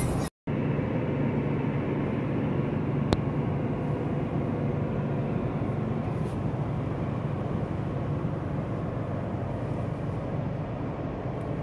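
Steady road and engine noise of a car driving at speed, heard from inside the cabin, with a low hum underneath. The sound cuts out for a moment near the start, and a single sharp tick comes about three seconds in.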